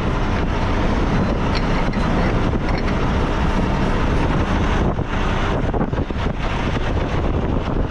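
Steady low rumble of a semi-truck's diesel engine idling, with wind buffeting the microphone; the level dips briefly a couple of times around the middle.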